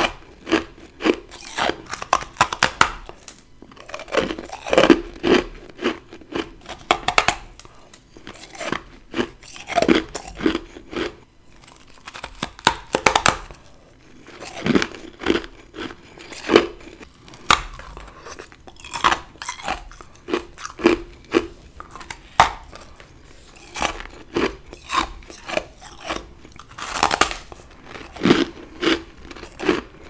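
Close-up bites and chewing of chunks of humidifier freezer frost. There are crunchy bites in bursts every second or two, each trailing off into chewing crunches.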